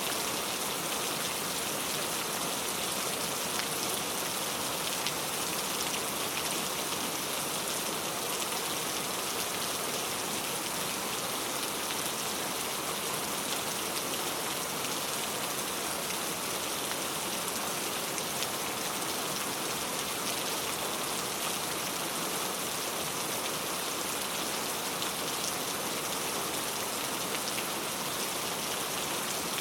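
Heavy rain falling steadily and loudly, a dense even hiss with fine pattering of drops on surfaces.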